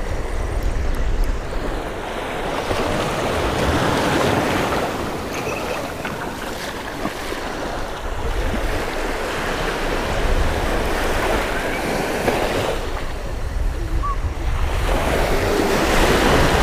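Small surf waves washing in and out around the wader, the rushing swelling and fading every few seconds, with wind rumbling on the microphone underneath.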